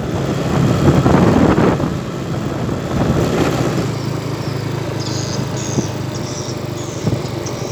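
Yamaha Nouvo AT automatic scooter running under way with its small single-cylinder four-stroke engine, mixed with tyre and rattle noise from riding over a gravel track. It is loudest for the first two seconds, then runs steadily.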